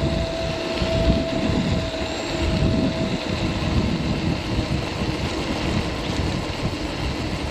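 Riding noise of a Caroma P1 electric scooter on the move: wind buffeting the microphone and the 14-inch pneumatic tyres rolling on pavement, a steady rush. A thin steady whine runs for the first three seconds and then stops.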